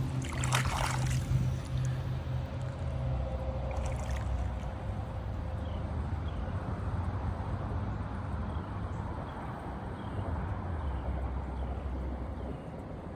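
Outdoor creek-side ambience: a steady low rumble with a noisy water-like hiss, a few sharp clicks about a second in, and faint short high chirps repeating in the second half.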